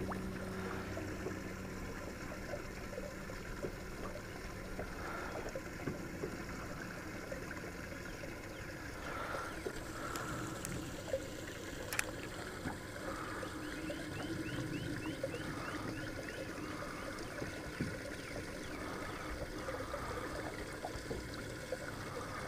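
Small waves lapping and trickling against the hull of a fishing boat, faint and steady, with one sharp click about twelve seconds in.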